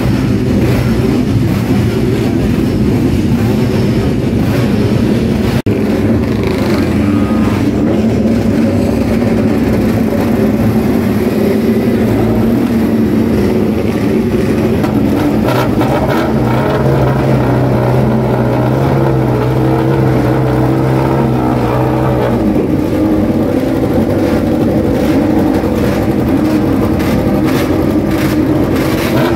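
Ducati Desmosedici GP3 990 cc V4 MotoGP race engine running on its open racing exhausts, held at a steady idle while it warms up, its note lifting slightly for several seconds in the middle.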